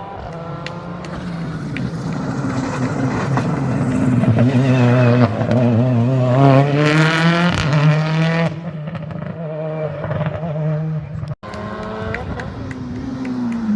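Rally car engine at full load on a special stage, its note climbing and falling through the gears. It cuts out sharply for an instant about 11 seconds in, then comes back running down in pitch.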